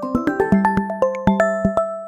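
Electronic keyboard music: a light tune of quick plucked notes, about three a second, over a steady low drone.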